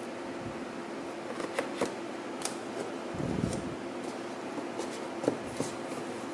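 Cardboard packaging being handled: light clicks, taps and scrapes as the white box insert and tray are lifted and shifted, with a short rustle midway. A steady low hum runs underneath.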